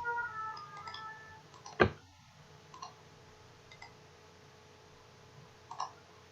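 Computer mouse clicks: one sharp click about two seconds in and a few fainter ones later, over a faint steady hum. A short run of high chime-like tones sounds in the first second.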